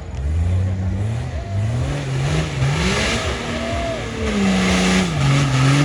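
Off-road 4x4's engine revving hard in repeated surges, its pitch climbing and dropping several times. A rising, held rev comes near the end, then falls away.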